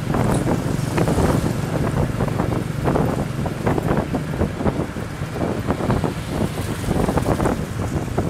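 Ride in a motor vehicle along a road: a steady engine hum under wind buffeting the microphone in irregular gusts.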